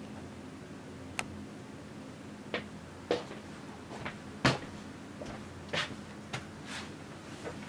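A person moving about a small room: about eight light, scattered knocks and clicks, the loudest a little past the middle, over a steady low hum of room tone.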